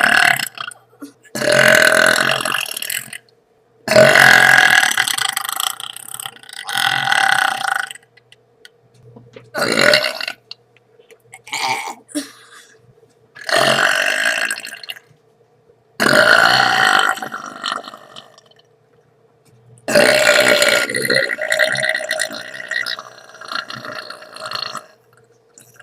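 A boy burping loudly, about eight burps one after another, several of them drawn out for two to five seconds.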